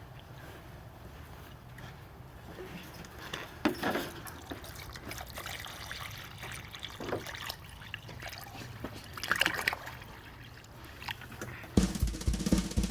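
Water sloshing and trickling as a rabbit water bottle is filled from a plastic gallon jug, with a few short knocks and rustles of handling. Drum-kit music starts near the end.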